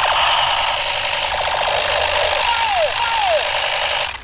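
A battery-powered light-up toy gun (the "Surprise gun") making its electronic firing effects: a steady, fast, noisy rattle with two falling "pew" tones about two and a half and three seconds in. It cuts off suddenly near the end.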